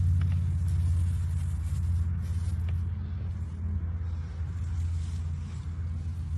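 A steady low rumble, heavy in the bass and fairly even throughout.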